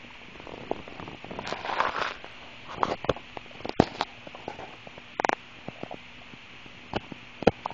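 Human stomach gurgling after drinking carbonated soda: an irregular run of short pops and squelching gurgles, with a longer gurgle about two seconds in and sharper pops a little past five seconds and near the end.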